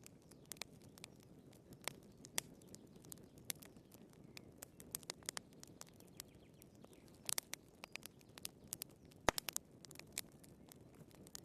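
Firewood burning in a fireplace, crackling: irregular sharp pops and snaps over a low steady hiss of the fire, with a quick cluster of pops about seven seconds in and the loudest single pop about nine seconds in.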